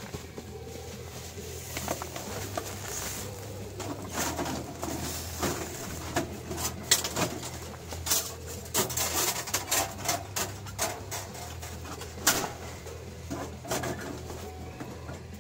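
Irregular clicks, knocks and rustling of someone moving about and handling gear inside a tent next to a wood stove, over a steady low hum.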